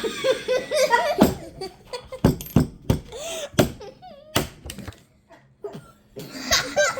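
A girl coughing hard in a string of sharp coughs, mixed with laughter and squeaky, wavering gasps. The coughing eases into a brief lull about five seconds in before laughter picks up again.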